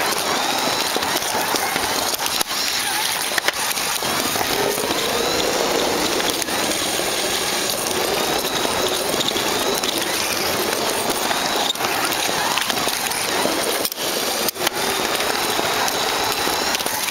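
Carrera Digital 132 slot car running along the plastic track: a steady rushing clatter of wheels and guide in the slot, with a faint electric motor whine that rises and falls with speed, heard up close from a camera riding on the car.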